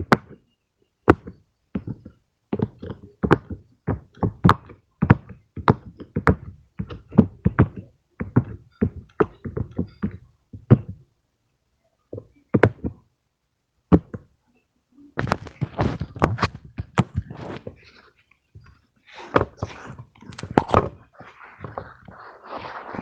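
Fidget toys being tapped and knocked, in a string of sharp separate taps about two to three a second, with a pause about halfway through. In the last third the handling grows denser and more continuous, mixed with taps.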